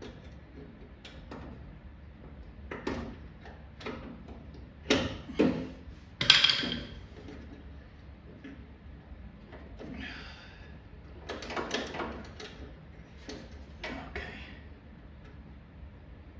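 Scattered metallic clicks, taps and knocks from a lock rod and its spring clip being worked by hand inside a 1964 Impala's steel door shell, with a brief scrape about ten seconds in. The loudest knock comes about six seconds in.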